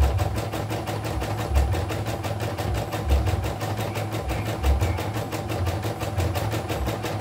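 YOKO portable embroidery machine running a stitch-out, its needle going in a rapid, even clatter with a heavier low thump about every one and a half seconds. It is running smoothly on a test after its unresponsive touchscreen was repaired.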